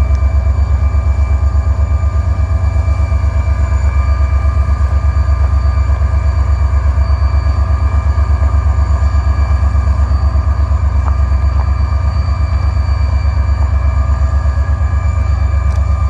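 EMD SD40 diesel locomotive's 16-cylinder two-stroke engine running close by: a loud, fast, even throb with steady high whining tones over it.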